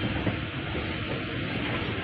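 Passenger train running along the track, heard from aboard the moving coach: a steady rumble and rush of wheels on rails, with no distinct rail-joint knocks.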